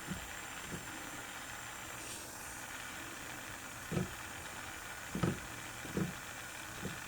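Steady hiss of a gas flame heating copper for soldering, with a few soft, low thumps from the work, the loudest about five seconds in.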